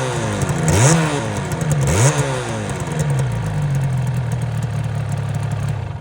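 Suzuki RG Wolf 125's single-cylinder two-stroke engine revved twice in quick throttle blips, each rising and falling back, then running at a steady idle until the sound stops abruptly at the end.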